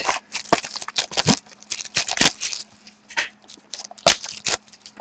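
A 2013-14 Select hockey card pack being torn open by hand: its wrapper crinkles and crackles in a string of irregular rustles, with a louder crackle about four seconds in.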